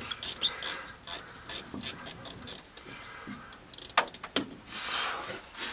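Ratchet wrench clicking in short, irregular runs while loosening or tightening bolts on a column-shift linkage, with light metal clinks of the tools.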